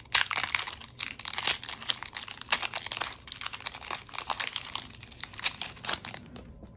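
Foil wrapper of a Pokémon Champion's Path booster pack crinkling and tearing as it is worked open by hand, a dense run of crackles that dies down near the end once the pack is open.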